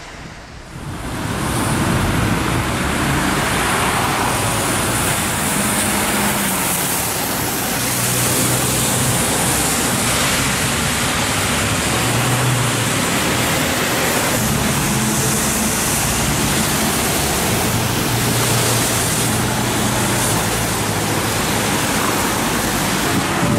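Busy road traffic on a wet street: a steady hiss of tyres on wet asphalt, with engines humming underneath. It comes in loudly about a second in.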